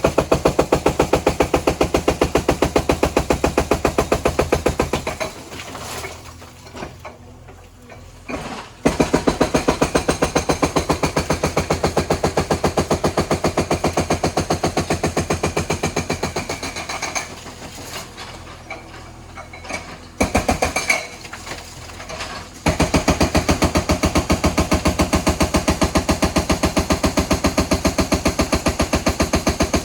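JCB backhoe's hydraulic breaker hammering at demolition work: a fast, steady train of blows in several long runs, stopping and restarting with short pauses between them.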